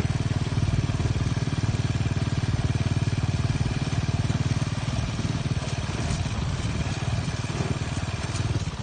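Saleng's small motorcycle engine running steadily with an even, rapid firing pulse.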